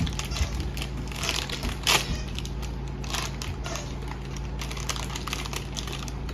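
Toy packaging crinkling and rustling as it is handled and torn open, in irregular crackles that come thicker about one to two seconds in and again about three seconds in.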